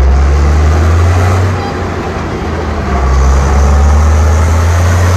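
Tractor engine sound effect running steadily with a low rumble. It eases slightly for about a second partway through, then picks up again.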